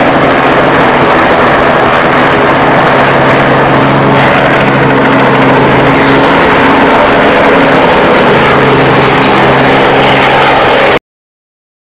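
Robinson R22 helicopter's four-cylinder piston engine and rotors running at lift-off power: a loud steady hum under a rushing noise. It cuts off suddenly near the end.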